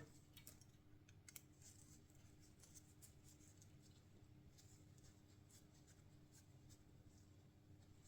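Near silence: faint scattered clicks and light scratches of a bicycle chain and chain tool being handled, over a steady low room hum.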